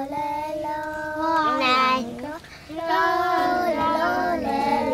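A child singing a Sámi yoik, with held notes that slide up and down in pitch. It comes in two phrases, with a short break for breath about halfway through.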